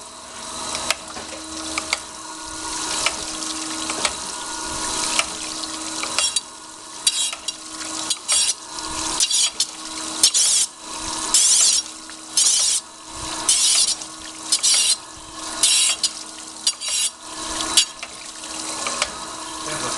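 Herless hydraulic surface grinder running, its spindle and hydraulics giving a steady hum under the hiss of the grinding wheel cutting a steel rectangular hollow section. In the second half the grinding hiss comes and goes in short bursts about once a second as the wheel catches high spots on the workpiece, which is still far off flat.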